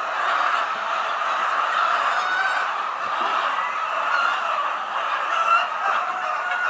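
A large flock of laying hens clucking and calling all at once, many short overlapping calls blending into a steady, unbroken din.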